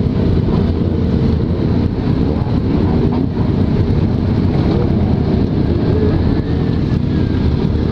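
Motorcycle engines idling steadily, the rider's own Yamaha XJ6 inline-four among a crowd of running bikes.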